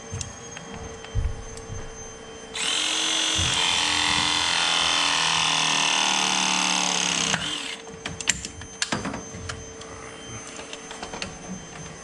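Battery-powered ProPress tool crimping a copper press fitting. Its motor runs for about five seconds, the pitch falling as the jaws close on the fitting under load, then it stops abruptly. Light clicks and knocks of handling follow.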